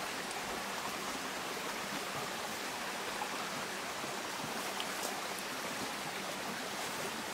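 Steady rush of running water from a creek or small waterfall.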